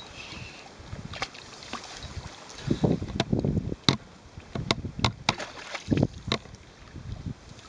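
A hooked carp thrashing at the surface in shallow water, making a run of sharp splashes that is busiest in the middle few seconds.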